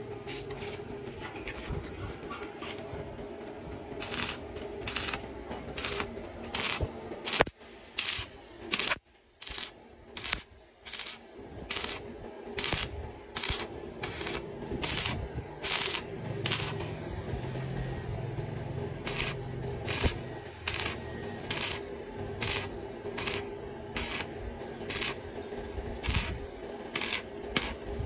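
A run of short, sharp clicks or clinks, about one to two a second, over a steady hum, with a quieter break about a third of the way in.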